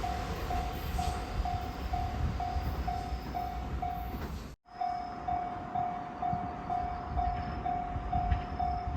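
Japanese electronic level-crossing alarm ringing, a steady pitched tone repeating about twice a second, over the low rumble of a train. The sound cuts out abruptly about halfway through, then the alarm resumes at the same pace.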